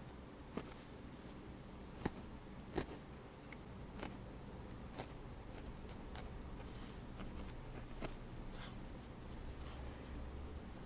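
Felting needle poking into a needle-felted wool cat nose, a short crisp click with each stab, about seven at uneven intervals, over a faint low hum.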